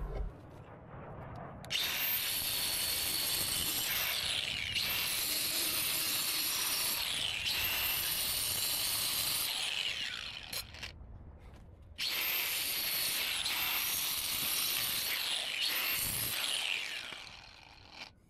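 Power tool cutting an opening in a drywall wall. It runs in several stretches of a few seconds, with a longer pause about ten seconds in, and its high whine falls away each time it stops.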